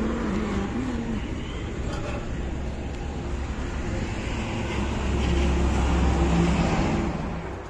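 Road traffic rumbling past, growing louder as a heavy vehicle goes by about five to seven seconds in.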